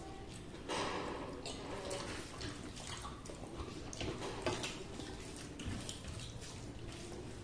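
Close-up eating sounds of people eating rice and curry by hand: wet chewing and lip smacks, with fingers squelching and mixing rice on steel plates. Short, irregular clicks and smacks.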